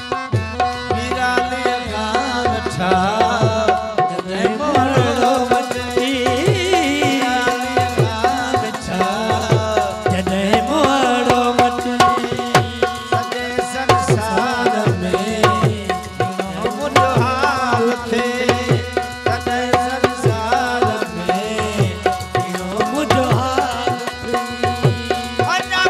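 Live folk music: tabla-style hand drums play a quick, steady rhythm, their deep strokes sliding down in pitch, under a harmonium's held chords, with a singer's voice rising and falling over them.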